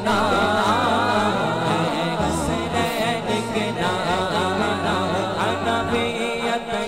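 A man's voice singing a naat, an Urdu devotional song, with echo effect on the voice. Under the voice a low steady drone shifts pitch in steps.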